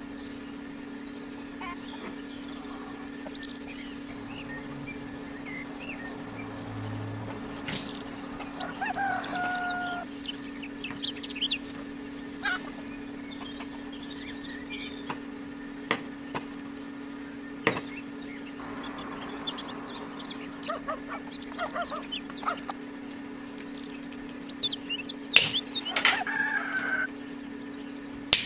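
Small clicks and taps of pliers handling thin copper tubing, over a steady low hum. A bird calls a couple of times: once with a held call about a third of the way in, and again near the end.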